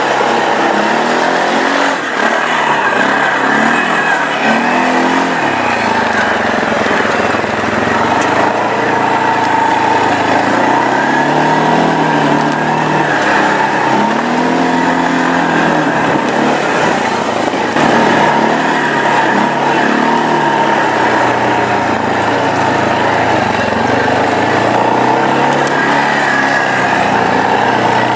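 Nissan Patrol off-roader's engine working over rough ground, its revs rising and falling every few seconds, over a steady loud rush of noise.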